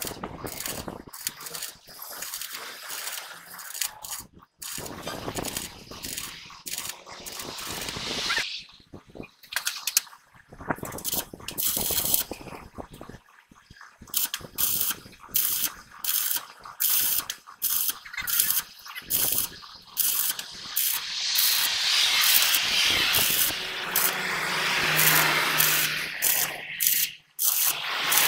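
Stick-welding arc crackling in runs broken by short pauses between strikes, as holes in a diesel truck's axle housing are welded up. The arc runs unbroken through the last third, and a faint low hum joins near the end.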